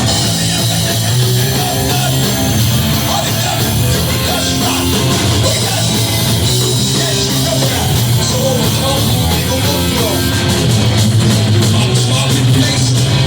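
Hardcore band playing a song live at full volume, with heavy guitars and drums.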